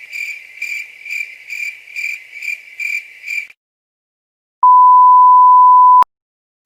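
Cricket-chirping sound effect, a steady pulsing chirp about twice a second, stops about three and a half seconds in. After a short gap comes a loud, pure, one-pitch censor beep lasting about a second and a half, which ends with a click.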